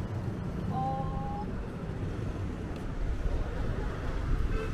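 City street ambience: a steady low rumble of passing traffic, with a brief held tone about a second in.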